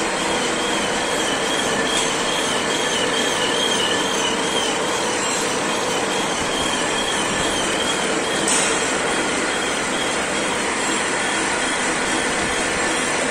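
Milling machine cutting a T-slot in a metal table under coolant: steady machining noise with a thin, high squeal that wobbles in pitch through the first half, then fades.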